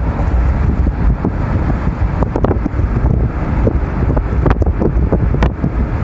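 Car driving on a road: a steady low rumble of tyres and engine, with wind buffeting the microphone and a few brief ticks.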